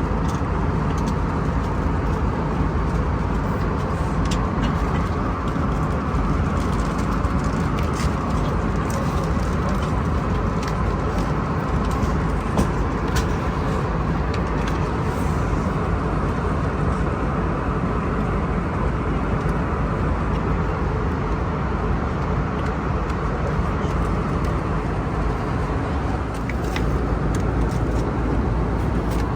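Steady cabin noise inside an Airbus A320neo airliner, with a few faint clicks scattered through it.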